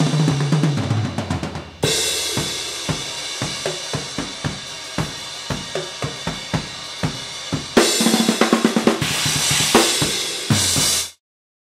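Soo Custom acoustic drum kit played hard: fast fills across the toms, snare and bass drum under cymbal crashes, with a big crash about two seconds in and a dense run of hits with cymbals near eight seconds. The playing cuts off abruptly near the end.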